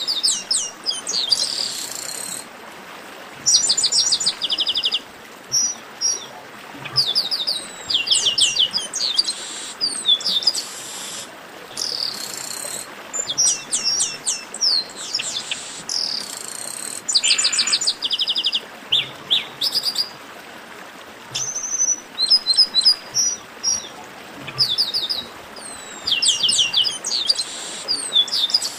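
Chestnut-capped blackbirds singing: repeated bursts of rapid, short, high notes in quick trains, with brief pauses between phrases, over a faint steady hiss.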